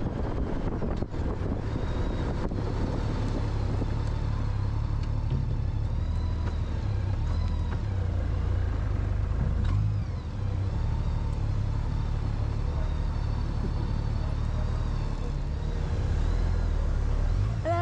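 Motorcycle engine running steadily at low speed as the bike slows and rolls forward, with wind rush on the helmet microphone easing within the first couple of seconds.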